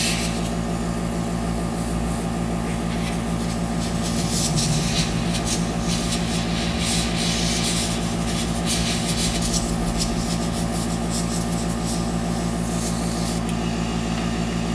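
Small airbrush compressor humming steadily, with the hiss of the airbrush spraying water-based makeup in stretches that start and stop, strongest in the middle.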